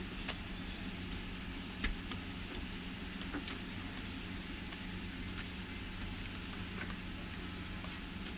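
Flatbread sizzling on a hot flat iron griddle (tawa), a steady hiss with a few sharp clicks of a metal spatula against the griddle. A steady low hum runs underneath.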